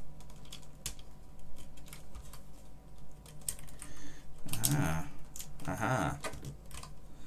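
Scalpel scraping and picking at a hard blob of super glue on a keyboard circuit board, making scattered sharp clicks and scratches. A voice mutters briefly twice around the middle.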